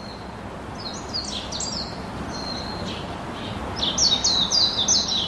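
Songbirds chirping: short, high, falling notes repeated in quick runs, becoming busier and louder about four seconds in, over steady outdoor background noise.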